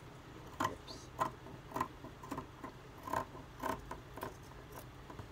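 Scissors snipping through two layers of T-shirt fabric, a steady run of short cuts at about two per second.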